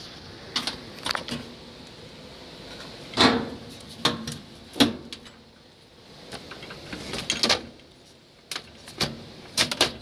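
Scattered clicks and knocks of metal retaining clips being fitted to a direct-drive top-load washer's cabinet and of the control console being handled, the loudest about three and five seconds in.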